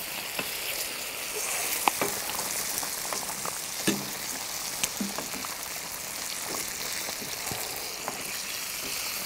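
Lamb shanks and tomatoes sizzling in a cast-iron kazan, a steady hiss, with a few sharp clicks as a spoon knocks against the pan, about two and four seconds in.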